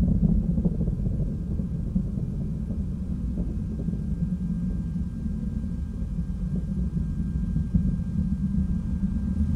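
Distant rumble of a Proton-M rocket's first-stage engines during ascent: a steady low rumble with some crackling, easing slightly midway and growing louder near the end.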